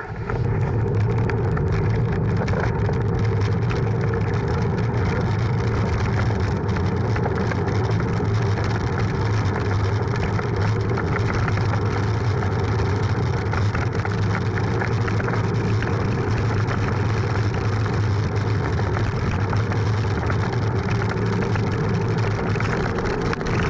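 Steady rushing and low rumble as a bicycle descends a mountain road: wind over an action camera's microphone, with tyre and road vibration coming through its loose mount.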